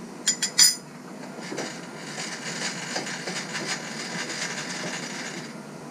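A few sharp clicks, then a milling machine's spindle running steadily with a hiss as the side of the drill bit is brought to the edge of the part. The running dies away near the end.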